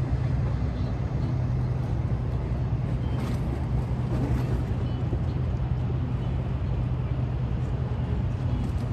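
Steady low hum of a moored passenger ferry's engines running at the dock.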